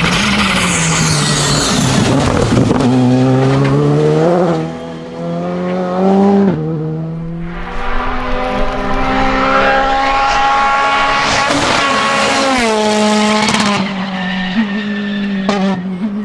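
Rally cars driven flat out on a tarmac stage, engines revving hard with the pitch climbing and dropping through gear changes as several cars pass in turn, with tyre squeal. A couple of sharp pops near the end.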